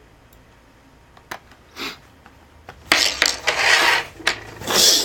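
Two light clicks, then scraping and rattling of small metal and plastic parts, like tools and screws being handled on a desk, from about three seconds in and again near the end.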